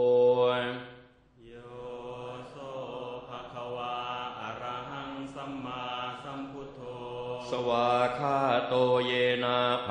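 Pali Buddhist chanting: voices intoning a verse in long held notes. It breaks off briefly about a second in, starts a new phrase, and grows louder near the end.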